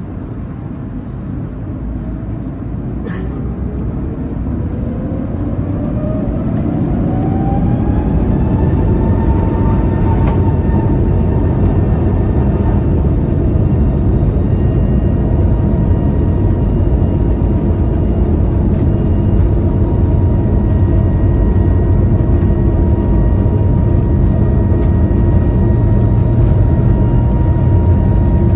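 Cabin sound of an Airbus A321neo's Pratt & Whitney geared turbofan engines spooling up to takeoff thrust. A whine rises in pitch over the first several seconds and settles into a steady high tone over a growing roar and runway rumble.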